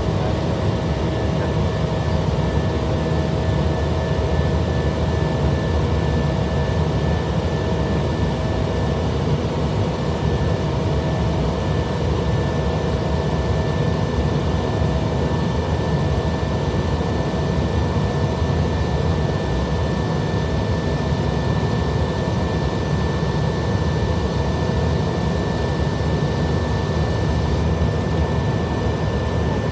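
Steady noise inside a climbing jet airliner's cockpit: jet engines and rushing air as one even roar, with a couple of faint steady tones running through it.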